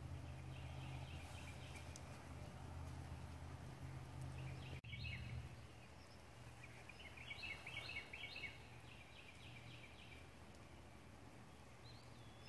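Faint outdoor ambience with small birds chirping: short, quickly repeated notes in runs, clearest in the second half. A low steady hum underlies the first five seconds, then drops away after a brief cut in the sound.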